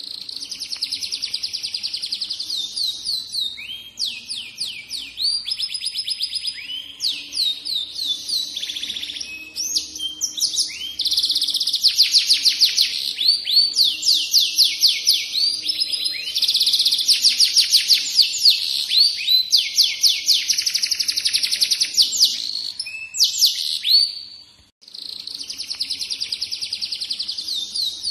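F1 canary singing a long, nearly unbroken song of fast trills and rolling repeated notes, with one short break about three-quarters of the way through.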